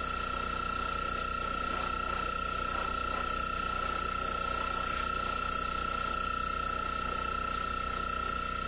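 Gravity-feed airbrush spraying a light coat of paint, a steady, even hiss of compressed air with the air kept on throughout. A steady high tone and low hum run underneath.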